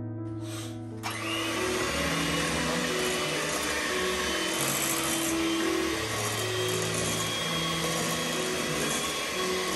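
An electric kitchen mixer starts about a second in and runs steadily, over background piano music.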